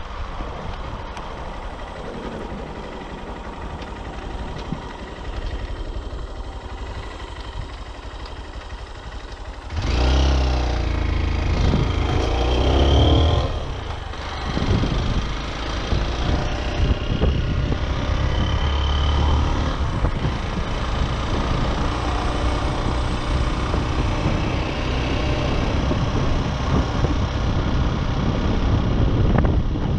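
Motorcycle riding along the highway: steady engine and road noise, quieter for the first ten seconds, then the engine is opened up and accelerates, rising and falling for a few seconds before settling into a louder steady run.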